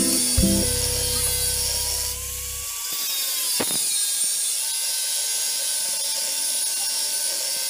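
Angle grinder cutting into the steel shell of a hermetic compressor: a steady high whine and grinding hiss, with the motor's pitch wavering slightly as the disc bites.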